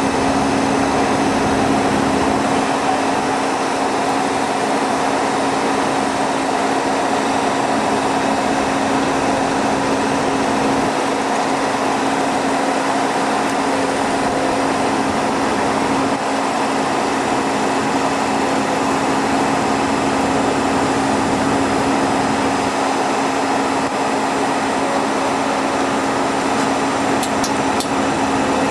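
A steady mechanical drone with a constant low hum, unchanging throughout.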